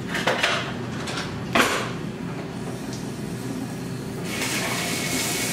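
A few sharp kitchen knocks and clatters of utensils and dishes, the loudest about a second and a half in, then a kitchen tap turned on and running steadily from about four seconds in.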